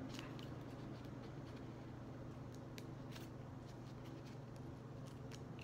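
Small scissors trimming paper: a handful of short, scattered snips over a steady low hum.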